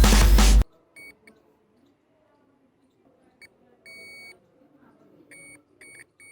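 A series of electronic beeps, all at one high pitch and irregularly spaced, varying from very short to about half a second long.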